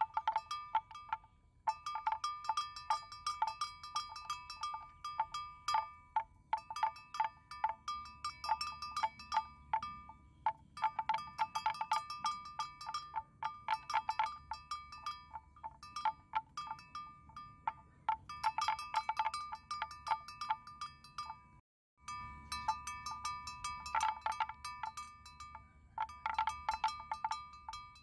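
A metal bell on a grazing water buffalo, clanking in irregular clusters of rapid strikes with short pauses between.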